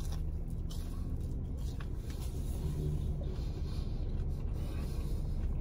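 Steady low rumble of a car cabin with the vehicle idling, with faint chewing of French fries.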